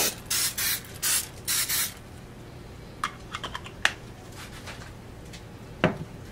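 Aerosol cooking spray hissing in several short bursts over a silicone mold in the first two seconds. A few light clicks follow, then a sharper knock near the end.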